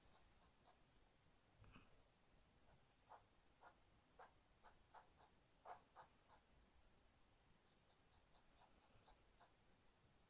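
Faint scratching of a dip pen's metal nib on thick paper, in short strokes. A run of scratches falls in the middle, and a few fainter ones follow near the end.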